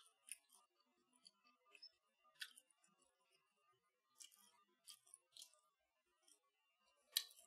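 A person chewing a crumb-coated air-fried chicken kiev close to the microphone: scattered soft crunches and wet mouth clicks, a few seconds apart, the loudest near the end.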